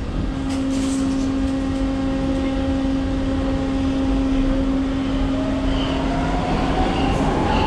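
Brussels metro train heard from inside the car as it pulls away from a station. A steady electrical hum starts over a low rumble, and from about halfway through a motor whine rises slowly in pitch as the train picks up speed.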